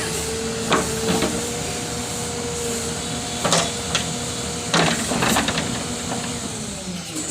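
JCB backhoe loader's diesel engine running steadily with a steady whine, broken by about six sharp metallic knocks and clanks from the machine working.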